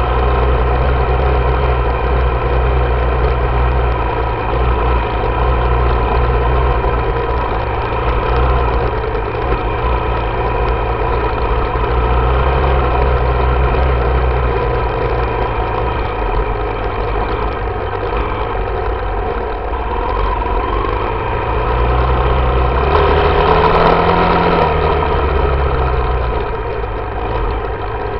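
Yamaha YZ dirt bike engine running at steady, fairly low revs while riding. About 23 seconds in it revs up, then falls back.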